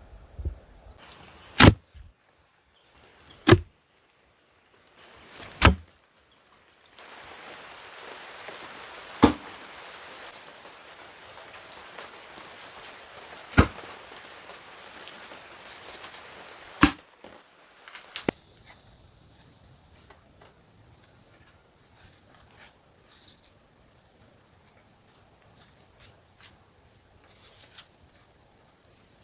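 Seven sharp knocks at uneven intervals of a few seconds, over a steady high-pitched insect chorus, crickets or cicadas, that runs on behind them.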